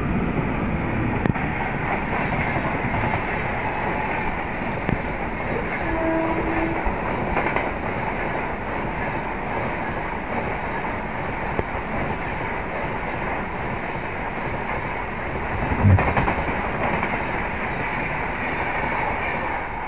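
Express passenger train rushing past at speed behind a WAP-5 electric locomotive, with a steady rumble and rattle of coach wheels on the rails. A louder knock comes about sixteen seconds in.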